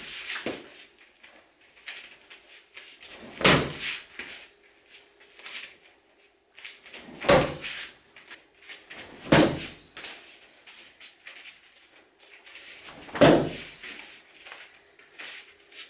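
Bare-foot spinning hook kicks striking a handheld foam taekwondo kicking paddle: four sharp smacks a few seconds apart, with lighter thuds of feet on the mat between them.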